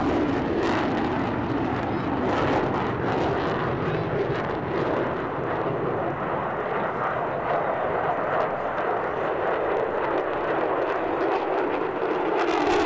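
Mitsubishi F-2 fighter jets in display flight, their single turbofan engines giving a steady, noisy jet rush that swells near the end as one passes close in a hard turn.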